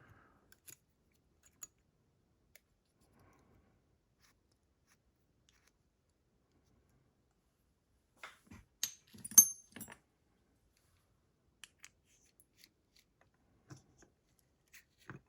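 Small metal clicks and taps from a padlock being worked with a shim: a few seconds of near silence, then a cluster of sharp clicks with one loud click just past the middle, then scattered light ticks.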